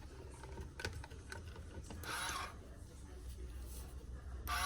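Faint clicks and small mechanical rattles of plastic parts being handled: the grinder and its charging station being set in place.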